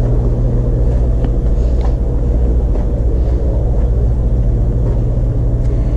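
Steady low hum and drone of aquarium pumps and filtration running, with a few faint clicks.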